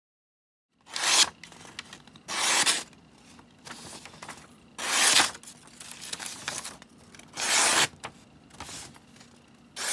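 Knife blade drawn repeatedly through a Victorinox dual knife sharpener, steel scraping against the sharpening slot. Five loud strokes come roughly every two and a half seconds, with fainter strokes between them.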